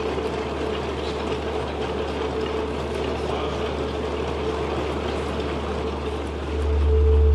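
Dense, even pattering and rattling from an installation of 56 prepared DC motors working against cardboard boxes, many small taps merging into one texture. A steady low drone and a held tone sit underneath, and the drone swells near the end.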